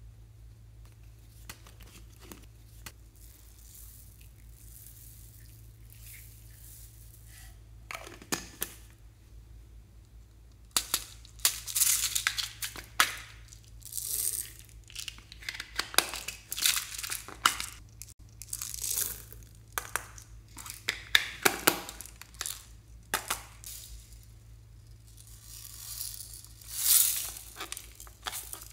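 Foam beads (floam) in slime crackling and crunching as they are pressed and mixed in by hand, in dense irregular bursts from about eleven seconds in, after a quiet start with only a few faint ticks.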